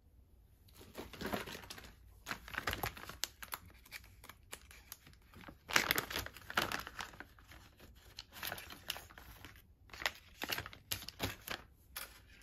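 Clear plastic bag of small spinning-wheel parts crinkling as it is handled, in irregular bursts of rustling.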